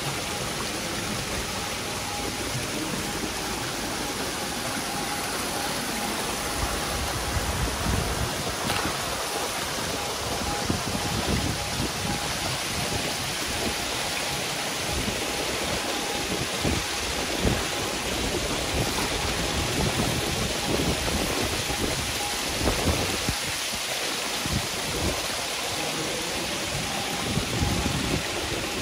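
Hybrid magur catfish crowded in a tank, thrashing and splashing at the surface as they feed: a steady rain-like hiss of churning water. From about seven seconds in, louder irregular splashes stand out from it.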